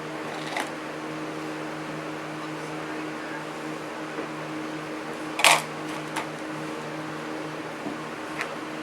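Steady low mechanical hum in the background, with a few light clicks and taps of small model-train parts being handled. The sharpest tap comes about five and a half seconds in.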